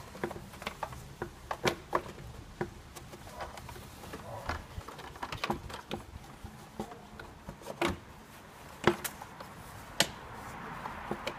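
Plastic air filter housing of a Kia Picanto being fitted into place: a string of irregular clicks, knocks and rubbing, with two sharper knocks near the end.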